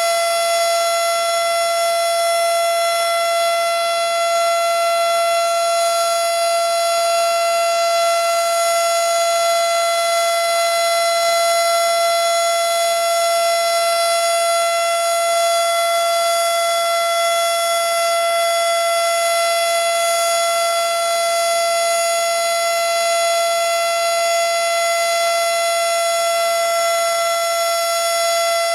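Model 7 outdoor warning siren sounding a steady alert tone during a test, heard from right under it. It holds one unchanging high pitch with strong overtones and no rise or fall.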